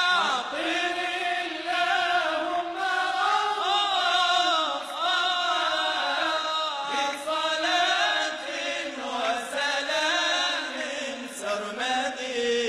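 Arabic religious inshad sung in long, ornamented melismatic phrases, the voice gliding up and down between held notes.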